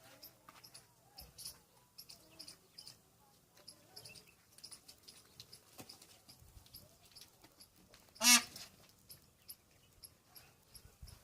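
A peafowl gives one loud, short, honking call about eight seconds in, over faint scattered clicks and small chirps.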